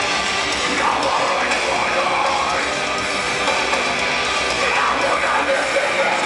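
Metalcore band playing live at full volume: distorted electric guitars over a drum kit, heard from inside the crowd.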